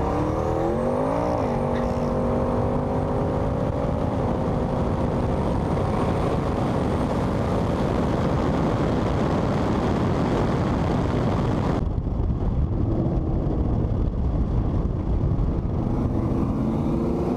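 V8 engines at full throttle in a roll race, heard from inside a car with heavy wind and road noise. The revs climb, drop at a quick upshift a little over a second in, then pull steadily upward. About twelve seconds in the sound changes abruptly to another run, and the engine note comes back lower near the end.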